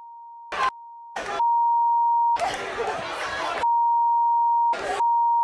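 Television censor bleep, a steady single beep tone held over stretches of a man's shouting to mask profanity. It is cut several times by short bursts of voices, and gets louder from about a second and a half in.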